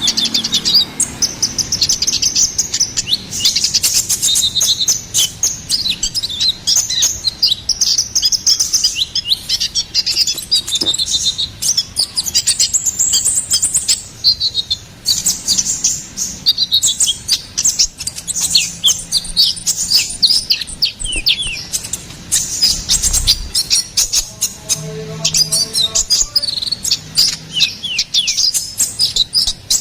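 Kolibri ninja (konin) sunbird singing a fast, unbroken run of thin, high chirps and twitters.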